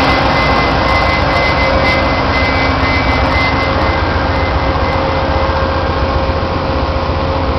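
VIA Rail passenger train rolling into the station: a loud, steady running rumble and rush of noise, with a few constant whining tones held throughout.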